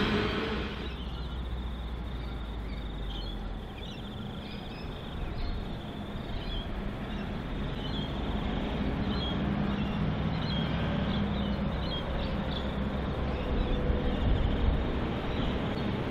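Birds chirping over a steady low rumble as a passing coal train fades out in the first second. Near the end the low sound grows a little as a NSW TrainLink Endeavour diesel railcar approaches.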